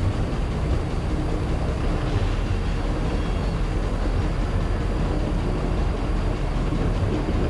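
Truck engine and road noise, running steadily while the truck is being driven.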